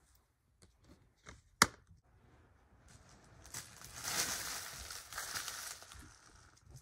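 Plastic DVD case being shut: a few light clicks, then a sharp snap about a second and a half in as the lid latches. A few seconds of rustling follow.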